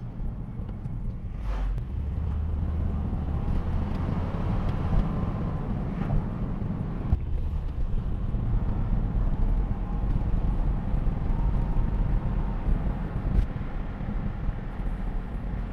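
Honda Odyssey (RB1) minivan driving, heard from inside the cabin: a steady rumble of road and tyre noise with the engine's hum underneath.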